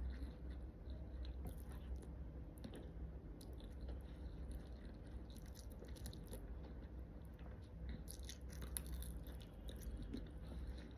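A person chewing and biting food close to the microphone, with clusters of short, crisp clicks from the food breaking between the teeth, over a steady low hum.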